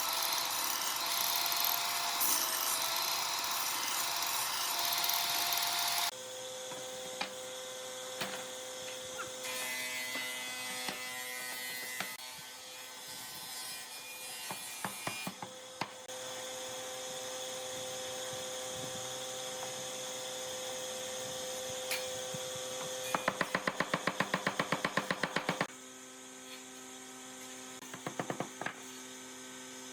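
Woodworking power tools heard in a series of short clips. A power tool runs loudly for the first six seconds, then cuts off abruptly, leaving a quieter machine hum with scattered knocks. Near the end comes a quick run of evenly spaced clicks, about five a second, lasting a couple of seconds.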